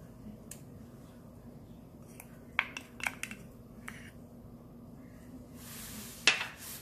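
Wooden spoon knocking and clinking against ceramic bowls while gochujang and minced garlic are added to a sauce: a few sharp knocks in the middle, then a scraping rush near the end that ends in one loud knock.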